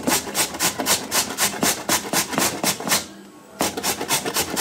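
Peeled raw potato grated on a metal box grater: quick, even rasping strokes, about five a second, with a short pause about three seconds in before the strokes resume.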